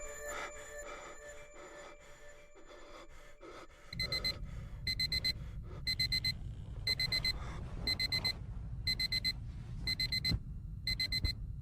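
Digital alarm clock beeping in clusters of quick high beeps about once a second, starting about four seconds in over a low rumble. Before it, a chiming tone fades away.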